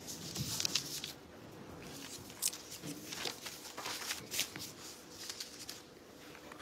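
Soft rustling of paper with small scattered clicks and knocks, as a book and its pages are handled.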